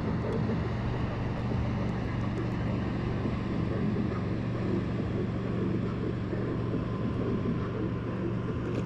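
A boat motor running steadily with a low, even hum, over light wind noise on the microphone.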